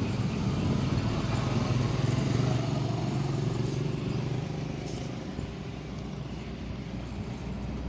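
A motor vehicle's engine running steadily, a low drone that eases off about halfway through.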